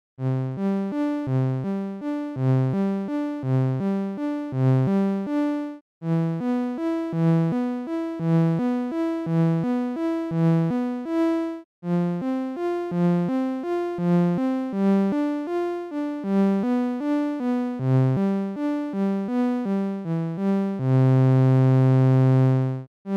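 Synthesizer notes played one after another from a hexagonal on-screen keyboard, about three a second, each fading quickly, in melodic phrases with short pauses between them. Near the end a louder note or chord is held for about two seconds.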